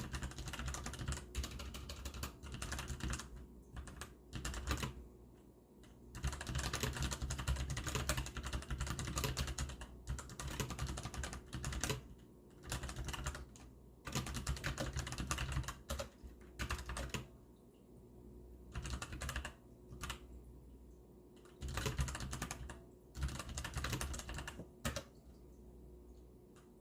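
Hansung GTune GK600 mechanical keyboard with brown (tactile) switches being typed on: quick runs of keystrokes broken by short pauses.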